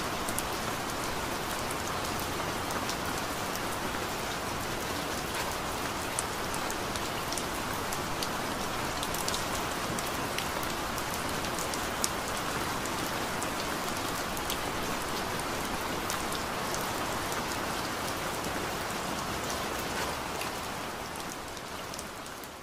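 Steady rain falling: a dense, even hiss with scattered drop ticks, fading out near the end.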